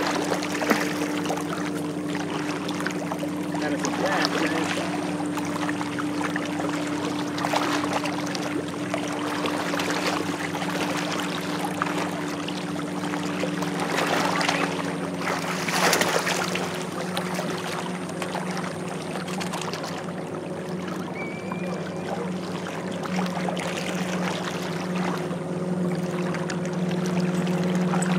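A motorboat engine humming steadily over a constant wash of wind and water; one of its tones drops out about halfway through, and the lower hum grows stronger near the end.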